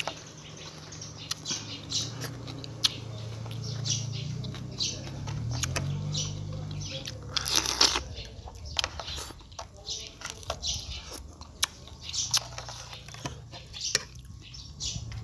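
Close-up eating sounds: smacking lips, sucking and slurping, and small crunches and snaps as cooked crab meat is pulled and chewed from the shell. A low hum runs under the first half.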